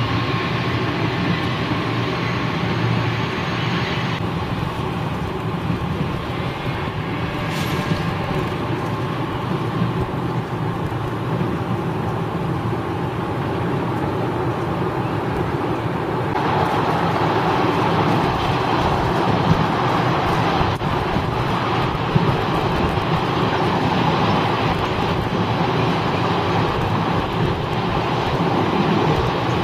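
Electric trains moving on the tracks: a steady rumble of rail traffic that grows louder about halfway through, as a stainless-steel suburban train passes close by.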